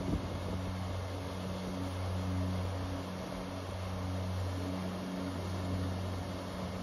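Waterfall pouring over rocks into a stream, a steady rushing hiss, with a low steady hum underneath.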